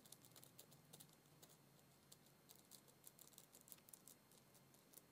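Faint clicking of computer keyboard keys being typed, a run of irregular keystrokes a few per second.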